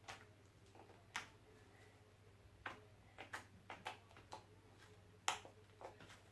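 Fluffy slime being squeezed and pulled by hand, giving irregular faint clicks and pops, the loudest a little past five seconds in.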